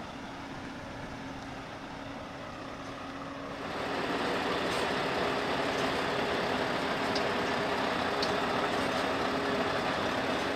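Scania S520 V8 truck idling: a steady low running sound with hiss over it. It gets clearly louder about four seconds in and then holds steady.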